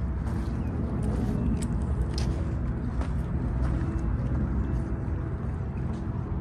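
Steady low rumble of road traffic, with a couple of faint clicks about two seconds in.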